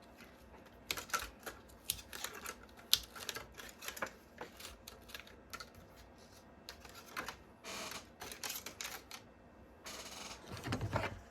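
Irregular light clicks and taps, with two short rustling scrapes in the second half.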